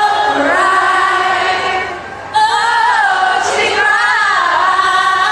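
A female voice singing a cappella in layered, choir-like harmonies, with no instruments, as a concert opener. The singing drops off briefly about two seconds in, then comes back in at full level.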